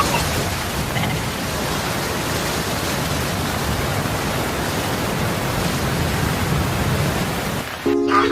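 A steady, even hiss of noise with no engine note or other distinct pitch in it. Just before the end it drops away and a few held musical tones begin.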